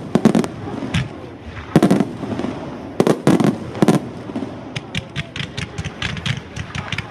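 Fireworks display: aerial shells bursting in heavy booms about once a second, then from about five seconds in a quick run of many sharp pops and crackles.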